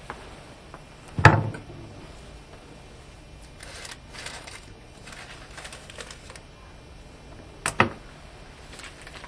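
Two short sharp knocks about six and a half seconds apart, with faint clicking and rustling between them.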